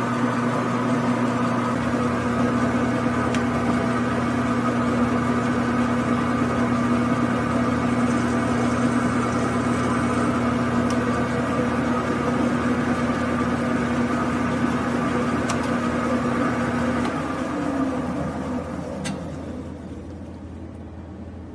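Grizzly G9972Z metal lathe running at a steady speed with a constant motor and gear hum. About 17 seconds in it is switched off: the pitch falls and the sound fades as the chuck spins down.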